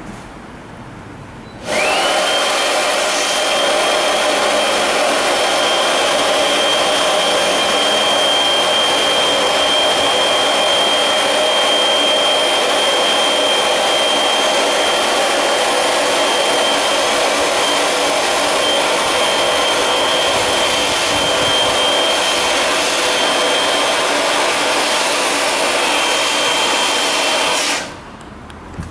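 Handheld electric air pump running steadily with a high whine as it blows air into an inflatable boat tube through its valve. It starts about two seconds in, quickly rising to speed, and switches off just before the end.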